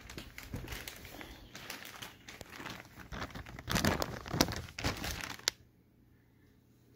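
Clear plastic bag crinkling and rustling as it is handled, loudest about four seconds in, then stopping abruptly.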